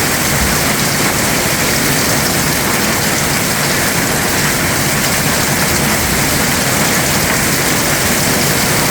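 Heavy rain falling steadily and loudly on surfaces, a dense, even hiss with no let-up.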